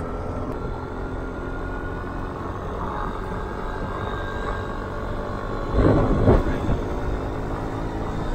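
Motor scooter running along at road speed: a steady engine drone mixed with wind and road noise, with a brief louder swell about six seconds in.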